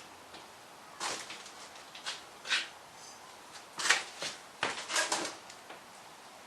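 Short, irregular clunks and scrapes of metal as a Mini A-series gearbox casing is worked free of its old gasket and lifted off the engine block, about half a dozen of them with the loudest near the middle.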